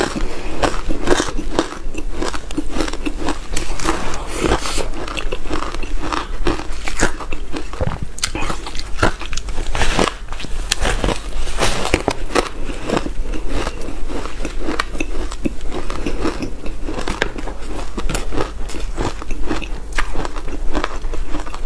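Close-miked biting into a block of soft powdery ice and chewing it: a dense, unbroken run of crunches and crackles.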